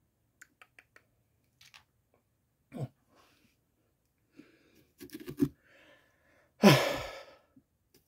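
A man's heavy, voiced sigh, breathing out loudly and falling in pitch, about three-quarters of the way through. Before it come a few faint clicks and a couple of short grunts.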